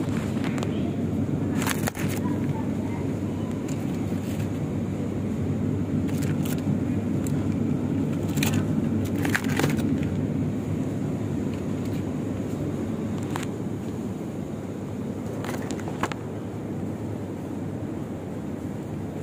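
Steady low background noise of a supermarket, with scattered short clicks and rustles from handling plastic meat trays and the phone.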